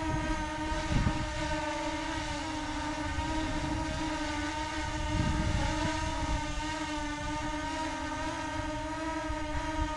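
Ruko F11 Mini quadcopter's brushless motors and propellers whining steadily in a hover, the pitch wavering slightly as the drone holds its position on GPS. Wind buffets the microphone about a second in and again around five seconds in.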